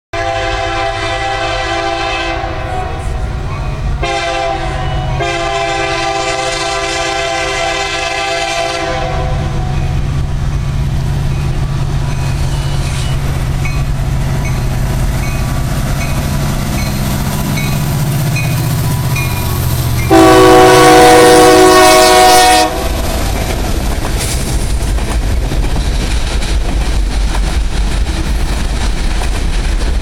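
Union Pacific EMD SD70M diesel locomotive sounding its air horn in several blasts, the last one long, then a steady low rumble as it approaches with its engine working hard near notch 8. About two-thirds through, a much louder horn blast as it passes close, followed by the rumble and wheel clatter of refrigerator cars rolling by.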